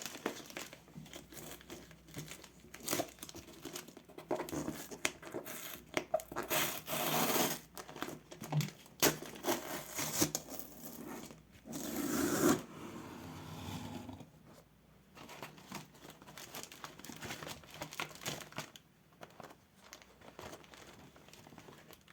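Packaging being unwrapped by hand: irregular crinkling and tearing, loudest about twelve seconds in, then quieter rustling.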